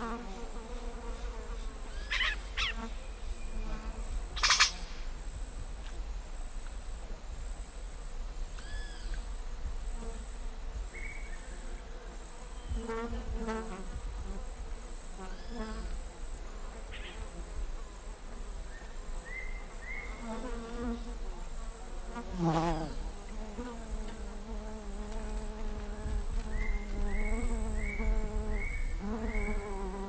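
Yellow-rumped caciques calling at a nest hole: scattered short arched notes, a loud sharp note about four seconds in, a long downward-gliding call past the two-thirds mark, and a quick run of short rising notes near the end. Under the calls run a steady high insect drone and a low, wavering insect buzz.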